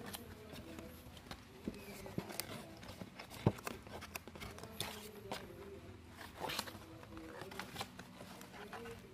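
Hands handling a cardboard box and its packaging: scattered taps, scrapes and rustles, with a sharp knock about three and a half seconds in.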